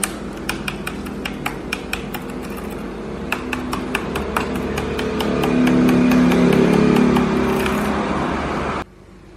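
Quick clicks of laptop keyboard keys being pressed one after another in a key test, on a keyboard whose keys are not responding. Under them runs a steady vehicle engine hum that grows louder in the second half, and both cut off abruptly near the end.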